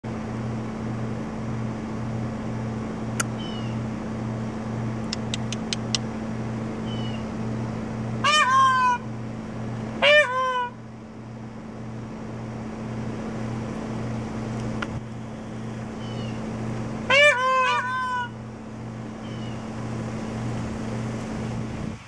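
Male Indian peafowl (peacock) calling in three loud bouts of piercing, honking cries, two close together and a third several seconds later, over a steady low hum that pulses regularly.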